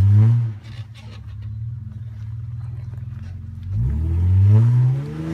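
Off-road vehicle's engine pulling under load, the revs dropping off at the start and then climbing and falling again twice, with a few light knocks about a second in.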